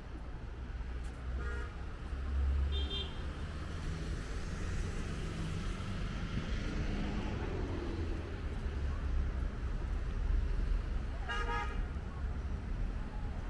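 Outdoor ambience: a steady low rumble of distant road traffic, broken by a few short high-pitched toots of distant vehicle horns, the loudest about eleven and a half seconds in.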